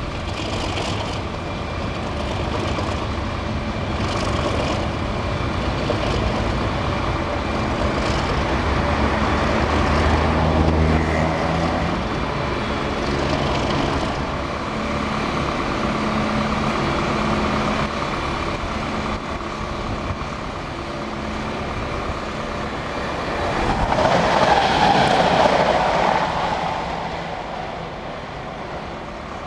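Class 37 diesel locomotive running steadily as it passes slowly at the head of a train of loaded ballast wagons. A louder rushing swell comes a few seconds before the end.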